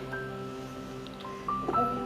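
Background music of gentle held notes and a simple stepping melody.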